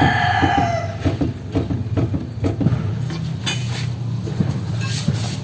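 Metal pipe levering at a Honda Civic's front lower control arm, giving repeated metallic clinks and clunks as the lower ball joint shifts: play that marks the ball joint as worn. A rooster crows during the first second.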